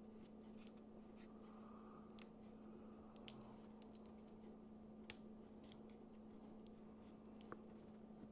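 Near silence with a steady low hum and a few faint, sharp clicks scattered through it: small plastic and metal clicks of unplugging a laptop's internal battery connector.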